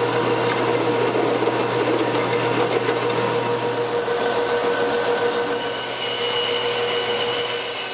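Electric power tools running steadily in a metal shop: a drill press drilling a hole in a steel block, then a horizontal metal-cutting band saw, with thin high whining tones coming in over the second half.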